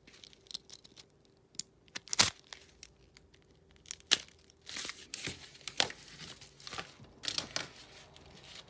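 Mail packaging being torn open and crinkled by hand: irregular crinkling and tearing, with sharp snaps about two and about four seconds in.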